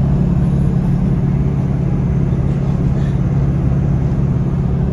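Steady low drone of a lorry's engine and road noise, heard from inside the cab while it is being driven.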